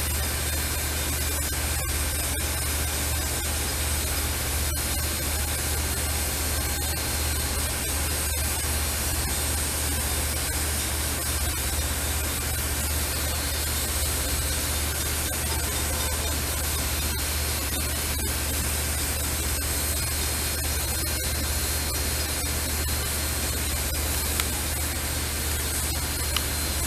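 Steam locomotive venting steam: a loud, steady hiss that holds unbroken throughout, over a constant low hum.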